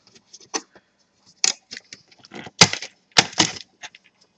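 Plastic laptop chassis part clicking and cracking as it is pushed out of place: a string of sharp, irregular clicks, the loudest about two and a half to three and a half seconds in.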